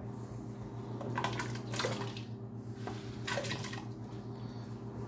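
Diced russet potatoes sliding off a plate into a pot of salted water, splashing in short bursts about a second in, around two seconds in, and again about three and a half seconds in, over a steady low hum.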